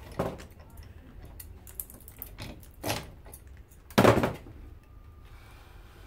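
Scattered knocks and clicks of tools and metal parts as an electric lawnmower motor is taken apart, the loudest knock about four seconds in.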